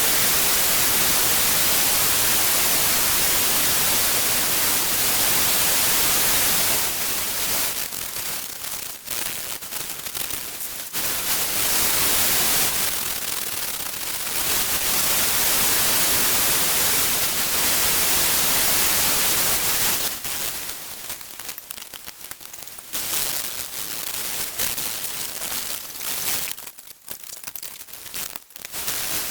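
Grinding a forged steel cutlass blade: a loud, even hiss in long passes that stop and start, breaking off about seven seconds in and again after twenty seconds, followed by quieter, uneven scraping.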